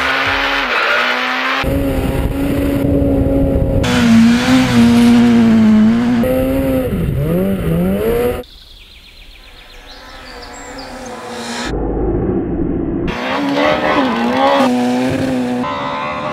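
Peugeot 207 Super 2000 rally car's naturally aspirated 2.0-litre four-cylinder engine revving hard, its note rising and falling through gear changes and lifts, in several abrupt cuts. Just past halfway the sound drops suddenly to a quieter stretch, then the revving builds back up.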